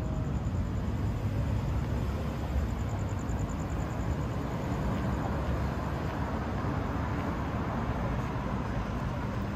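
City street traffic: a steady low rumble of passing cars with no distinct events.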